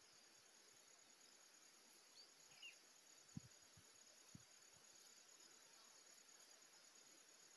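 Near silence: faint steady high-pitched outdoor hiss, with a few soft low thumps about halfway through.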